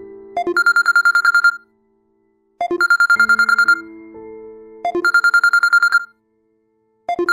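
Phone ringtone ringing: a fast warbling trill about a second long, repeated three times about two seconds apart, with held low notes between the trills.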